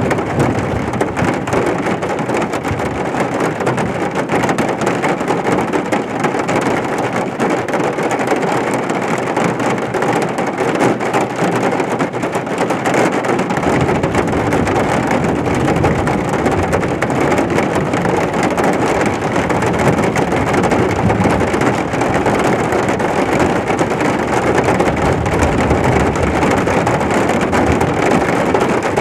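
Heavy rain pouring steadily, with a low rumble coming in about halfway through.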